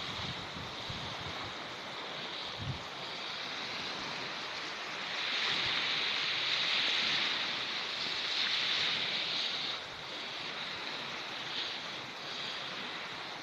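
Sea waves washing onto the shore, a steady hiss that swells louder for a few seconds in the middle; a few low thumps in the first seconds.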